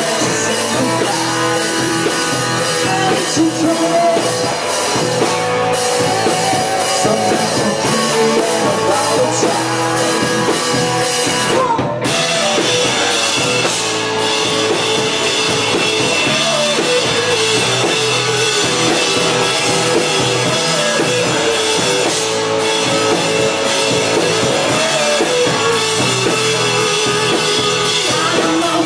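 Rock band playing live on drum kit and electric guitars, with a brief break about twelve seconds in.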